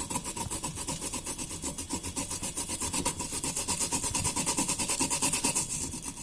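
Fresh wasabi root being rubbed back and forth on a hand grater, a quick, even rasping of many strokes a second that stops near the end.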